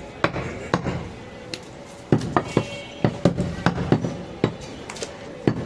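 Butcher chopping goat meat with a cleaver: a dozen or so sharp chops at an uneven pace, about two a second.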